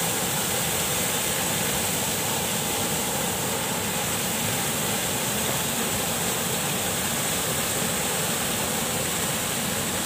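Small river waterfall pouring into a pool: a steady rush of falling water.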